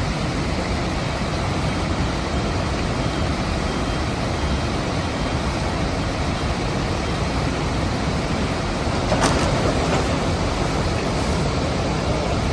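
Steady rushing of floodwater pouring through a weir, with one sharp knock about nine seconds in.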